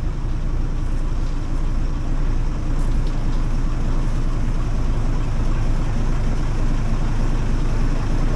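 Steady low rumble of a heritage diesel train on a preserved railway line, with no clear rhythm.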